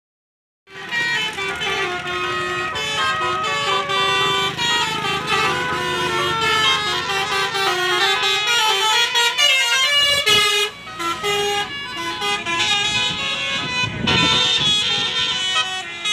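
Basuri telolet horn on a tour bus playing a melody of quick, stepped musical tones. It starts suddenly just under a second in and breaks off briefly about ten seconds in.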